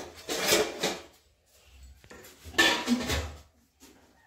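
A metal serving spoon scraping cooked rice out of a metal pot and onto a steel plate, in two scrapes about two seconds apart.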